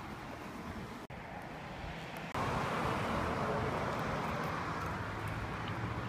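Road traffic noise from cars on the street, a steady rush that suddenly gets louder about two seconds in.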